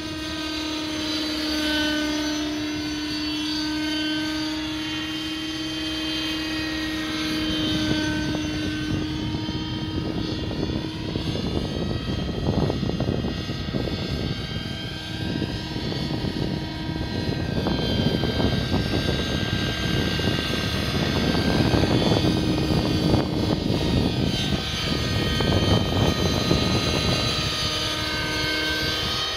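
Align 600 nitro RC helicopter in flight: its glow-fuel engine and rotors running, the engine note gliding up and down in pitch as it manoeuvres, with a rougher, louder stretch through the middle.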